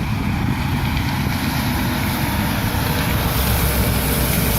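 Steady rumble of road traffic, a semi-truck driving past with engine and tyre noise; no horn is sounded.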